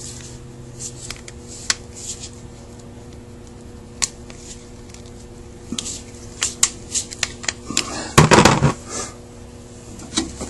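Small clicks and taps of a cast Carter WA-1 carburetor body and its small metal parts being turned over and handled by hand, with a quicker run of clicks and then a louder clatter about eight seconds in. A faint steady hum sits underneath.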